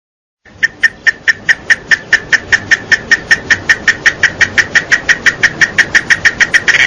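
Cicada calling: loud, evenly spaced buzzing pulses at about five a second that run together into a continuous high buzz near the end.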